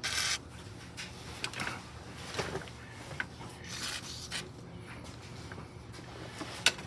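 Scattered scraping, rubbing and light taps of hand tools and metal parts being worked loose under a car, with a sharp click near the end.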